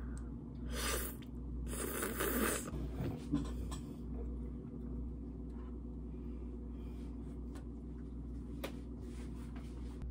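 Kalguksu noodles slurped in two pulls, about one and two seconds in, then a knock and scattered small clicks of tableware, over a steady low hum.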